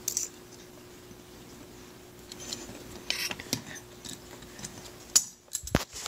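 Small metal parts of a dishwasher drain solenoid and its sheet-metal bracket clinking and being set down on a wooden tabletop as they are handled, with scattered light clicks and two sharper knocks near the end.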